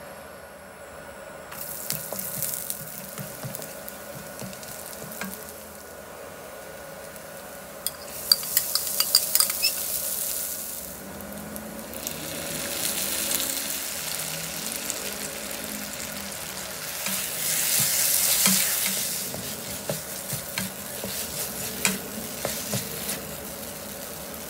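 Rice frying in a nonstick wok, sizzling in waves as it is cooked, with a spatula stirring and scraping the pan. A quick run of sharp taps comes about eight seconds in, and more near the end.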